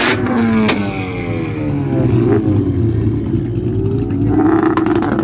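Car engine being revved: its pitch falls away just after the start, climbs and drops again through the middle, and rises once more near the end.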